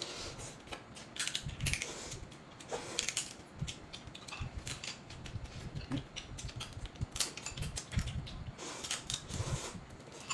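Close-up eating sounds: noodles slurped in short hissy pulls and chewed, amid many small clicks and cracks from chopsticks and crab shells being pulled apart.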